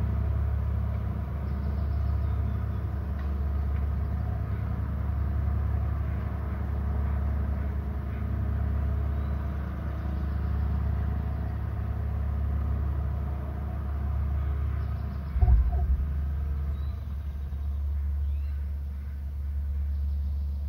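Steady low rumble of wind buffeting an outdoor microphone, swelling and easing every couple of seconds, with a single low thump about fifteen seconds in.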